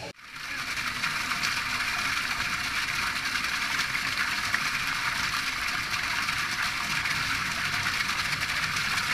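Water gushing steadily into a fish-hatchery holding tank, a continuous rushing splash with no let-up, as fish and water come through a large flexible transfer hose.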